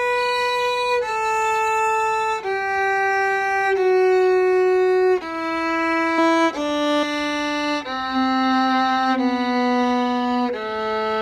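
Viola bowed in slow half notes, playing a G major scale stepwise downward, about nine notes, each held for roughly a second and a quarter.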